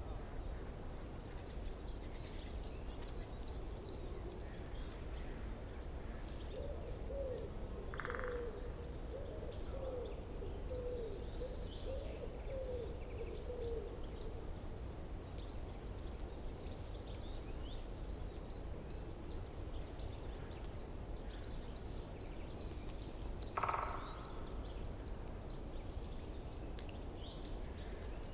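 Forest stream's water running steadily, with birds calling over it: a rapid run of high chirps comes three times. A series of lower wavering notes runs for several seconds about a quarter of the way in.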